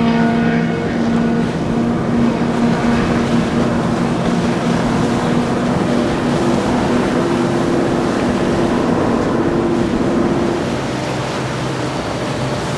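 Jaguar Marine J43 center-console powerboat running at speed: a steady engine drone over the rush of water and wind. The engine note fades about ten seconds in, leaving the even rush of water.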